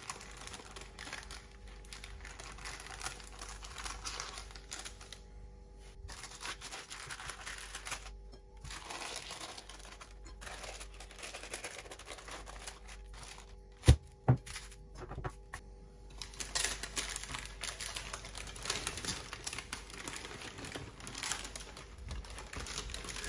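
Parchment baking paper rustling and crinkling as it is peeled away from a baked sponge cake layer, in stretches with short pauses. Two sharp knocks close together about two thirds of the way through are the loudest sounds.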